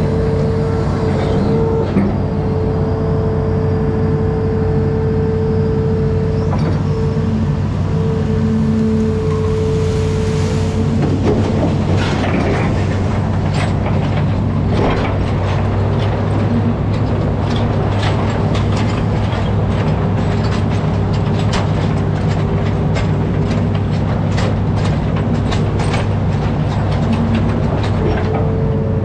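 An amphibious excavator's diesel engine running steadily under load, with a steady whine over the drone. The whine breaks off about eleven seconds in and returns a little lower a few seconds later. From about twelve seconds in, a dense run of crackling and rattling clicks sounds over the engine.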